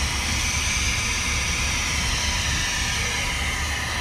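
Large gas pipe burner blowing its flame under a cooking pot, a steady hiss over a low rumble.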